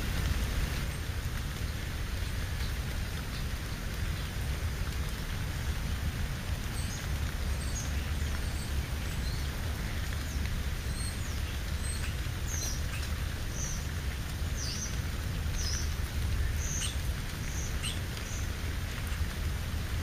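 Steady outdoor hiss with a low rumble, and from about a third of the way in, a dozen or so faint, short, high chirps of small birds, each sliding down in pitch.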